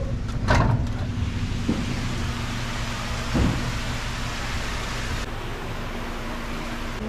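Steady low mechanical hum under an even hiss like falling water, from a swimming pool's waterfall feature and its equipment. A short knock comes about half a second in, and another around three and a half seconds in.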